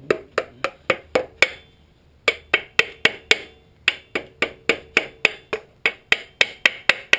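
A rubber mallet striking a tool in quick, even blows, about four a second, with two short pauses in the first half, driving a cutter along the oil pan's sealant to break the pan loose from the VQ35DE engine block.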